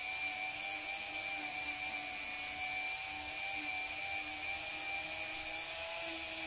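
Dremel rotary tool running at a low speed setting, a steady whine with slightly wavering pitch, as it buffs a guitar fret to a shine.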